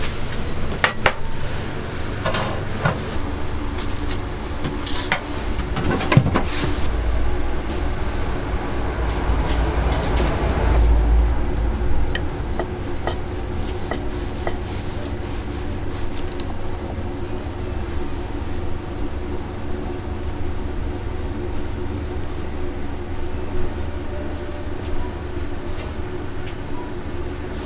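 Street ambience: a steady low traffic rumble that swells as a vehicle passes about ten seconds in, under a constant hum, with a few sharp clicks and knocks in the first several seconds.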